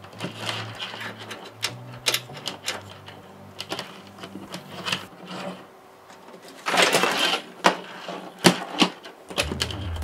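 Power supply cables being handled and pulled through a steel PC case: irregular rustling, clicks and taps of the cables and plugs against the metal. There is a longer scraping rustle about seven seconds in, followed by a few sharp knocks.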